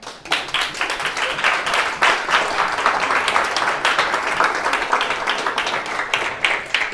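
Audience applauding, starting at once and beginning to thin out near the end.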